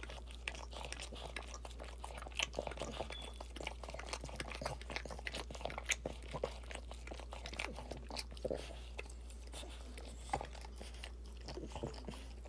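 Irregular wet smacking and clicking from a Boston Terrier mother licking and mouthing her newborn puppies.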